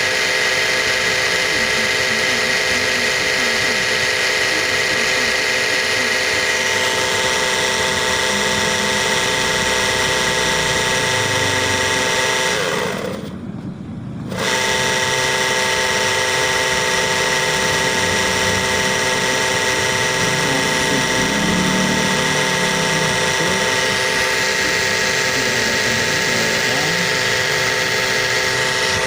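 Karcher electric pressure washer's motor and piston pump running with a steady high hum, test-run after repair of its piston section, where oil had been leaking and mixing with the water. About thirteen seconds in the sound briefly drops away, then comes back at full strength.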